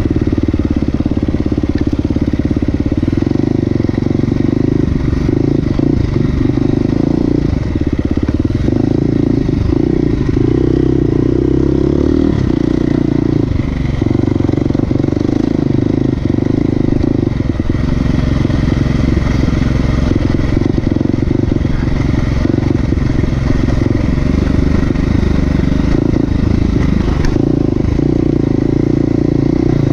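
A motor vehicle engine running continuously under way, its pitch shifting up and down a little with the throttle.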